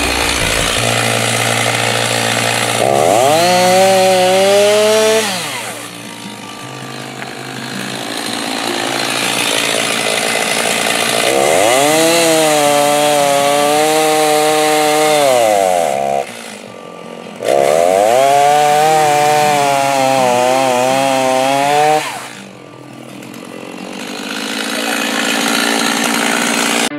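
Stihl Farm Boss two-stroke chainsaw running, revved up three times: each time the engine note climbs, holds for a few seconds, then falls back toward idle.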